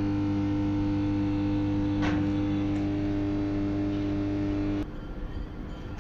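A steady electrical or mechanical hum held at one pitch, with a brief noisy rustle about two seconds in. It cuts off suddenly near the end.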